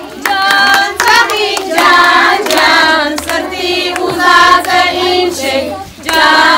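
A group of children and women singing a song together in phrases with short breaks, with hands clapping along.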